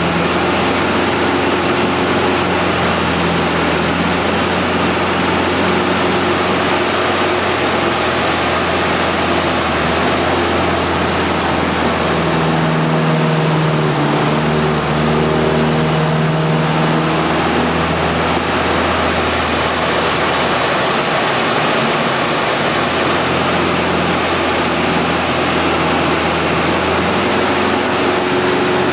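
Inside the cockpit of a Mudry CAP 10B aerobatic plane: its four-cylinder Lycoming engine and propeller running under a loud, steady rush of wind. The engine note shifts in pitch for a few seconds about halfway through, as power and airspeed change in a manoeuvre.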